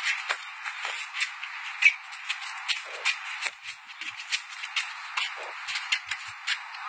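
Boxing gloves smacking in quick, irregular slaps during sparring, with sneakers scuffing and shuffling on concrete, over a steady hiss; the sharpest smack comes about two seconds in. The sound is thin, with no bass.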